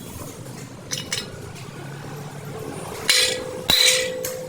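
Metal-on-metal clinks and clanks of steel parts being knocked together: two light clicks about a second in, then louder clanks from about three seconds in, one of which leaves a steady ringing tone.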